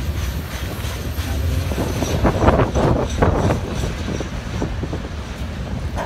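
Freight train cars rolling past with a steady low rumble. A run of clanks and wheel clatter comes from about two to three and a half seconds in.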